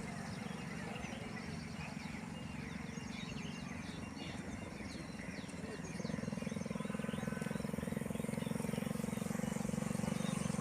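Forest river running steadily, with many short bird chirps over it in the first half. The low rushing steps up louder about six seconds in.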